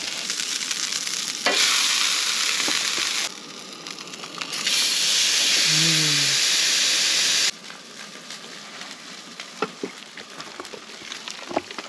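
Steaks searing in a hot pan with a steady sizzle. The sizzle grows much louder twice, each time starting and stopping abruptly, with a few light clicks in between.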